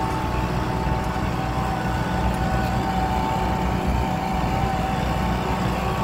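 Kubota tractor's diesel engine running steadily under load as it pulls a plow through hard, long-untilled ground, with a steady high whine over the deep engine hum.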